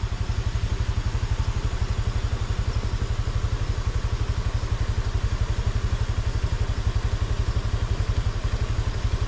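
Motorcycle engine idling with a steady, even low throb.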